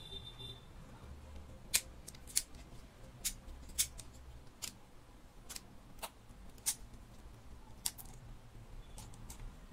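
Sharp hard-plastic clicks and snaps, about nine at irregular intervals, as a DJI Osmo Action camera is worked out of its tight-fitting plastic frame case and the case's latch is flipped open.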